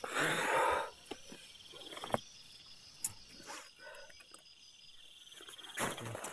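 Rustling and handling noise as someone shifts about inside a nylon tent, loudest in the first second and again near the end, with a few sharp clicks between. Insects chirp faintly and steadily in the background.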